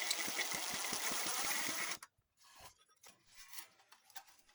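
A small power tool runs briefly with a rapid, buzzing rattle and a faint whine, stopping about two seconds in.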